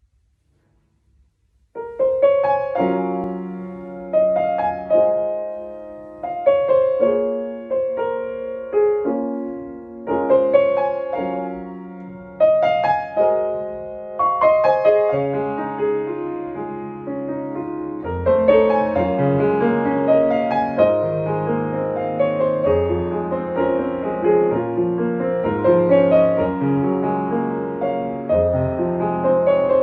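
Piano played four-hands, two players at one keyboard, in a gentle, slow piece. The first notes come about two seconds in, after a brief silence; the playing starts as phrases of struck chords every couple of seconds, and about two-thirds of the way through it grows fuller, with lower bass notes added.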